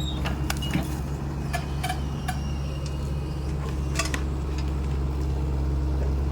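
SANY SY75C Pro excavator's diesel engine running steadily, overlaid by a scatter of sharp metallic clinks and clanks, some ringing briefly, from the working machine.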